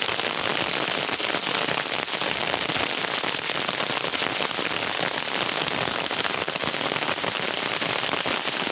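Steady rain falling on surfaces: a dense, even hiss of many fine drop ticks.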